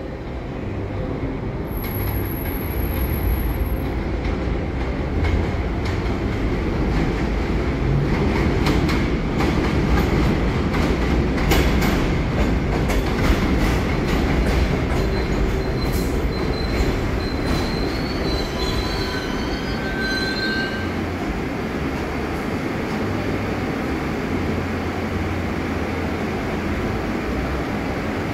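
New York City subway train pulling into an elevated station: a steady rumble of wheels on the rails, a run of clicks over rail joints as it comes in, then a brief wheel squeal as it slows to a stop, leaving a steady hum.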